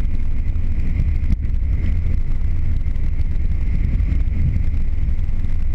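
Converted bus driving at highway speed, heard from the dashboard: a steady low rumble of engine and road, with wind buffeting the microphone and a faint steady high whine.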